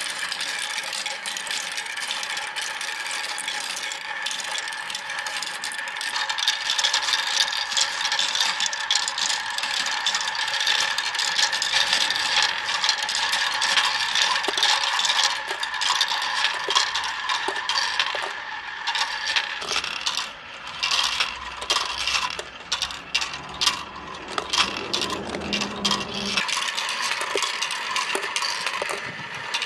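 Plastic marbles rolling and clattering through a plastic marble-run course, a continuous rattle with a steady rolling hum. A little past the middle it thins into many separate clicks and knocks as the marbles drop and strike the plastic pieces.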